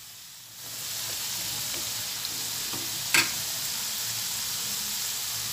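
Potato chunks deep-frying in plenty of hot oil in a steel wok: a steady sizzle that swells up within the first second. A single sharp clink of the metal spatula against the pan about three seconds in.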